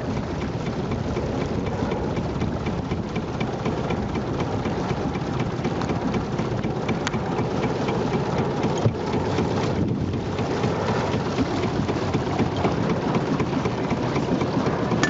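Steady rush of wind and water aboard a small steam launch under way, with a faint, regular ticking running through it.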